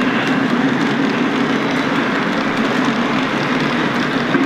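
O gauge model freight train running past, its cars rolling over the track with a steady rumble.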